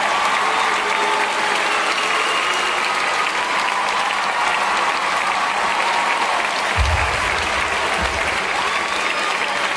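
Large arena audience applauding steadily, with a brief low rumble about seven seconds in.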